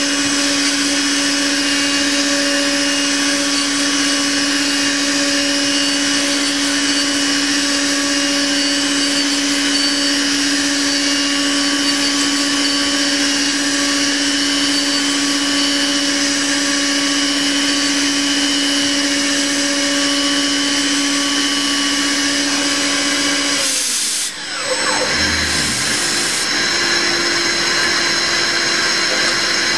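CNC mill spindle running steadily with an 8 mm end mill taking a finishing cut, a constant machine hum over the cutting noise. About 24 seconds in the hum breaks off with a quick falling sweep, and a steady noise with a slightly different hum carries on.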